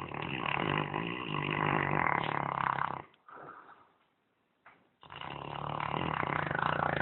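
A Saint Bernard snoring very loudly: two long snores of about three seconds each, with a short, softer breath between them.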